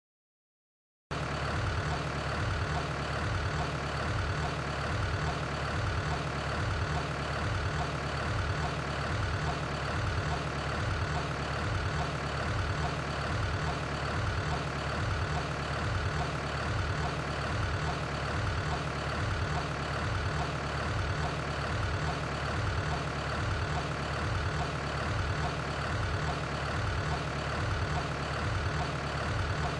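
A machine running steadily with a regular low throb, starting abruptly about a second in.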